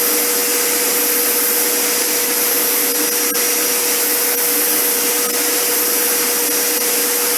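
Vacuum cleaner running steadily, its motor giving a constant whine over an even rushing noise, with a few faint ticks.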